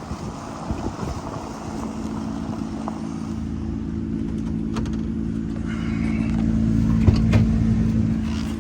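A motor vehicle's engine running steadily. It grows louder from about three seconds in, is loudest near the end, then eases off.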